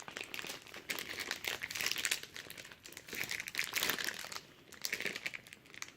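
Packaging crinkling and rustling as new car parts are handled and unwrapped, with a brief pause about four and a half seconds in.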